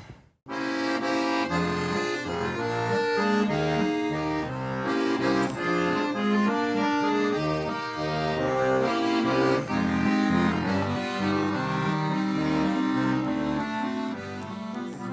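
Accordion playing an instrumental introduction to a folk song: a melody over held chords and bass notes, starting about half a second in after a short gap.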